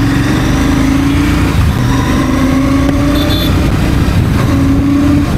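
Royal Enfield Shotgun 650 motorcycle's 648 cc parallel-twin engine pulling away under riding, its note rising three times in a row with short breaks between.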